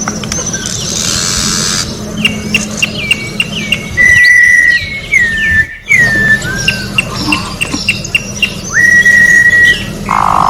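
Campo troupial (corrupião) singing clear whistled phrases. Quick runs of short notes and falling slurs alternate with two long held whistles, about four and nine seconds in.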